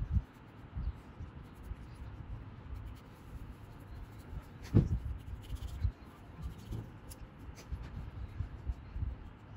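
A sheet of watercolour paper handled and rubbed against a wooden board: low, uneven rubbing and handling noise with small knocks, and one sharper knock a little before halfway.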